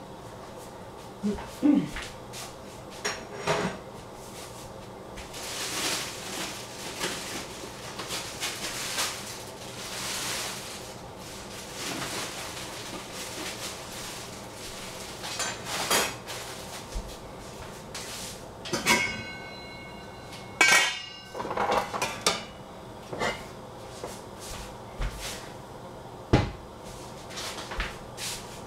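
Kitchen clatter of pots, lids and bowls being handled and set down on a gas stovetop: scattered knocks and clinks, with short stretches of rushing noise. About two-thirds of the way through comes a cluster of metal knocks with a metal lid ringing briefly.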